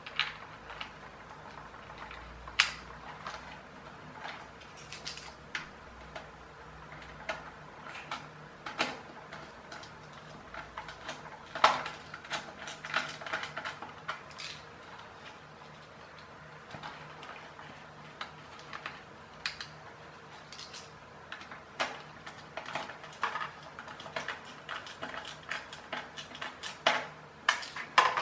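Irregular small clicks, taps and rattles of a hard-plastic toy car chassis and small screws being handled, as screws are fitted with a small screwdriver.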